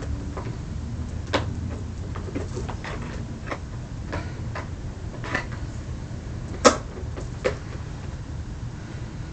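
Handling noises: a dozen or so short clicks and knocks, with one sharper knock about two-thirds of the way through, over a steady low rumble. A humming tone stops just as they begin.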